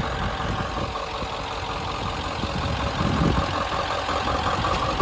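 1997 Ford F-350's 7.3-litre V8 turbo diesel idling steadily, with a brief low thump about three seconds in.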